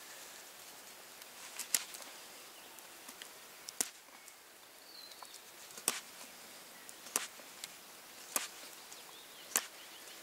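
Knife blade cutting into a barked wooden stick in short carving strokes, each a crisp snick, about six clear strokes spaced one to two seconds apart with a few lighter cuts between.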